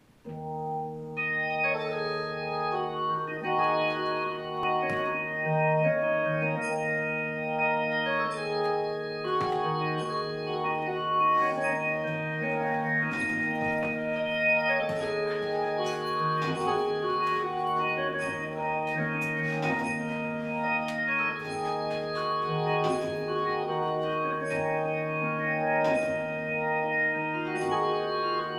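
Slow music led by organ: long held chords over a steady low bass note, with light percussive ticks scattered through it.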